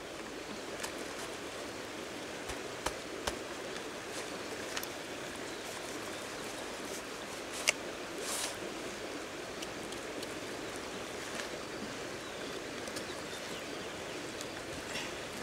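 Steady rushing of running water, with a few sharp clicks and a short scrape as a knife cuts into the top of a pumpkin around its stem.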